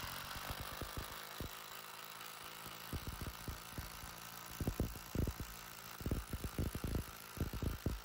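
Lyuwo cordless impact driver, converted to a 3/8-inch anvil, on speed 3, driving a 6x100 screw into a wooden log. The motor runs steadily for about three seconds. Then the impact mechanism starts hammering in rapid, uneven blows as the screw meets resistance, the blows coming thicker and louder towards the end.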